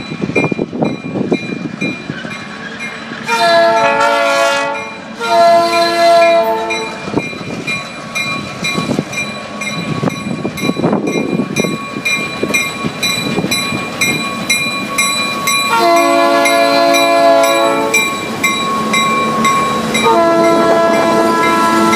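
A freight train's diesel locomotive air horn sounds four long blasts, two close together about three seconds in and two more later, the last still going at the end. Between blasts the locomotives' engines and the train's wheels rumble as it approaches and passes close by.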